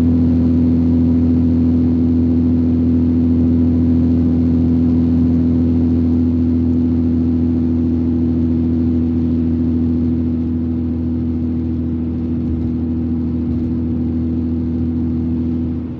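Car engine and tyre drone heard inside the cabin while cruising at a steady highway speed: a steady low hum that eases slightly over the last few seconds.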